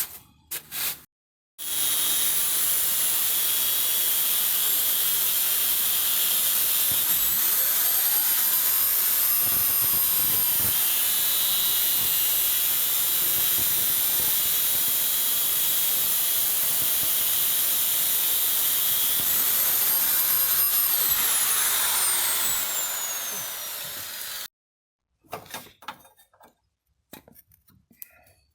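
High-speed power tool running steadily for about twenty seconds, its pitch wavering twice, then dropping away near the end as it spins down.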